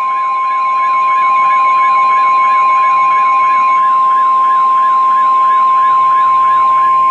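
NOAA Weather Radio's 1050 Hz warning alarm tone sounding as one loud, steady beep through a weather radio receiver, with a faint wavering warble behind it. The tone signals that a warning message is about to be broadcast.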